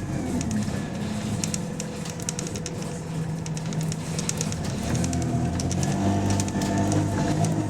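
Bus diesel engine running, its pitch rising about halfway through as it pulls, with rapid sharp ticking and puffing from a leaking exhaust.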